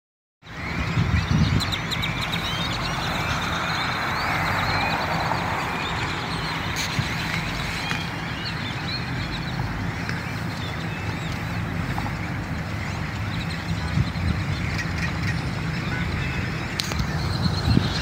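Dense, continuous chattering and chirping of a huge flock of blackbirds, with a low steady rumble underneath.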